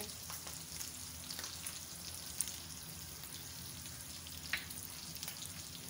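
Minced beef frying on a tawa, a steady sizzle with a few sharp crackles now and then.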